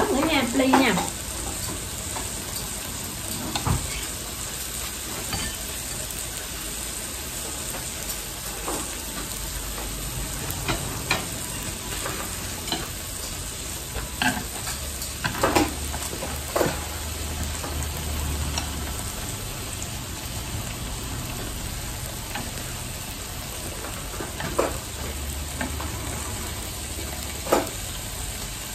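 Beef-wrapped enoki mushroom rolls sizzling steadily on a tabletop grill plate, with scattered light clicks and taps of chopsticks against the grill and food.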